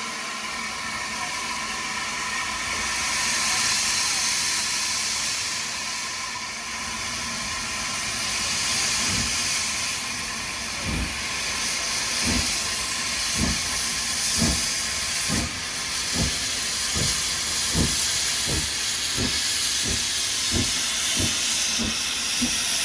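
Hunslet Austerity 0-6-0 saddle-tank steam locomotive WD 152 pulling away with a train, steam hissing steadily from its open cylinder drain cocks. From about a third of the way in, its exhaust chuffs start and come quicker and quicker as it gathers speed, reaching about two a second near the end.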